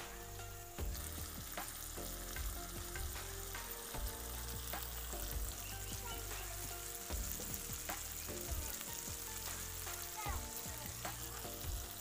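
Chopped onion and tomato sizzling in hot oil in a steel kadai, with a steady hiss throughout. A metal spatula scrapes and clinks against the pan now and then as it is stirred.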